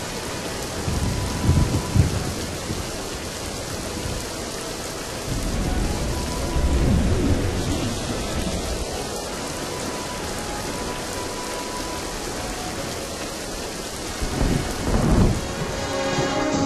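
A thunderstorm: steady rain with thunder rumbling about a second in, again around six seconds in, and once more near the end.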